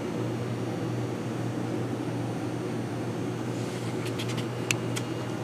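Steady low room hum, like an air conditioner or fan, with a few light clicks in the last couple of seconds as the revolver is handled.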